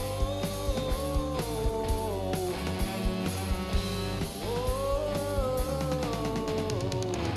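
Live rock band playing: electric guitar, bass and drum kit over a steady beat, with two long, slowly bending melody phrases, one after the other.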